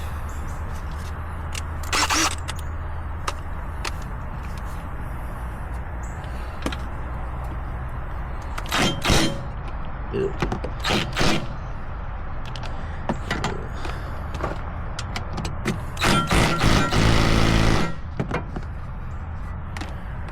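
Metal tool clanks and knocks during wheel hub work. Near the end comes a two-second burst of an impact wrench ('ugga dugga') driving in the hub bolts, over a steady low hum.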